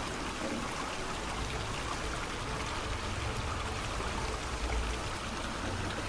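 Steady rush of pouring, streaming water.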